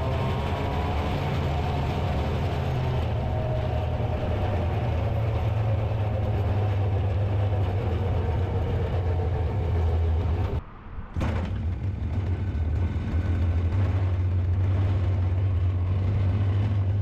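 Small two-stroke chainsaw engine driving a go-kart, running hard and steady with its pitch shifting a little in the first couple of seconds; the sound breaks off for about half a second around eleven seconds in.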